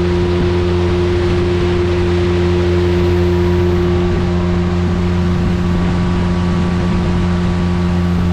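Speedboat engine running steadily at an even pitch, with a constant rushing noise from the water and air.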